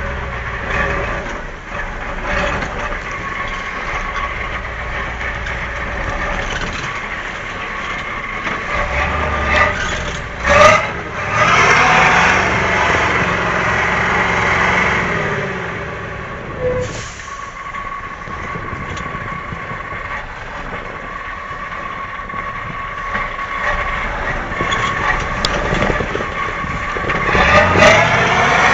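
Truck engine running steadily, with a sudden sharp knock about ten seconds in. It then revs up and falls back over a few seconds, and gets louder again near the end.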